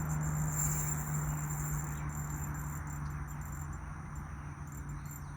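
Steady high-pitched insect chirring, such as crickets, over a constant low hum and a soft even rush of background noise.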